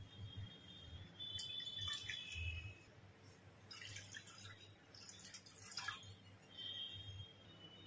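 Water and then milk poured from a steel measuring cup into a nonstick pan, heard as three short, faint splashing pours.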